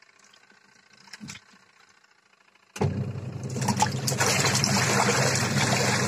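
Top-loading washing machine: after a near-quiet pause with a small knock, water starts rushing in the machine about three seconds in, steady and loud over a low electric hum.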